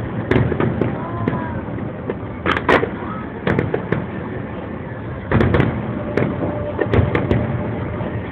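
Fireworks bursting overhead in an irregular string of sharp bangs and crackles. The loudest clusters come about two and a half seconds in and again around five and a half seconds.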